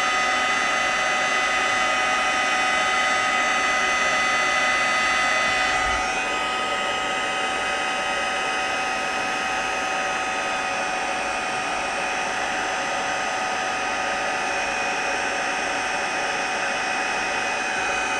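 Craft embossing heat gun blowing steadily, a fan hum with a constant whine, as it melts copper embossing powder on cardstock. It drops slightly in level about six seconds in.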